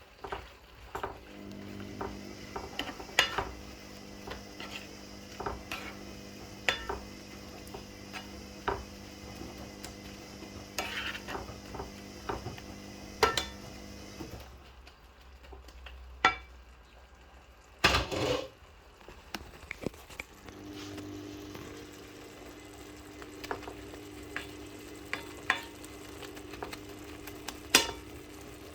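A spoon stirring eggplant curry in coconut-milk gravy in a pot on the stove, with frequent short clinks and scrapes of the spoon against the pot over the sizzle of the simmering curry. A steady low hum drops out for several seconds midway, and there is one louder knock just after the hum stops.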